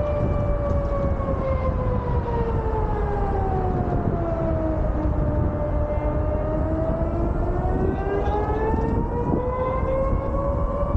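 Civil-defence warning siren sounding in a test of the public alert system. Its wail slides slowly down in pitch and climbs back up over about ten seconds.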